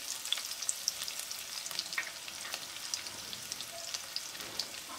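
Garlic cloves and cumin seeds frying in mustard oil in a kadhai over low heat: a steady sizzle scattered with small crackles and pops, several a second.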